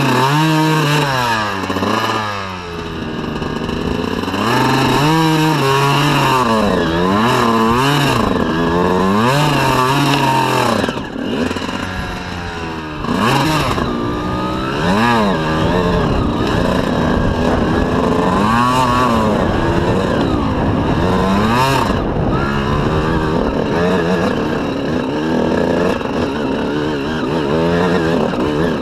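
Honda CR125 two-stroke single-cylinder dirt-bike engine revving up and down again and again. It eases off briefly about two seconds in and again around eleven to thirteen seconds.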